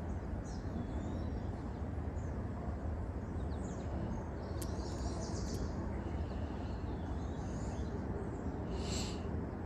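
Small birds chirping here and there over a steady low outdoor rumble, with one clearer chirp near the end.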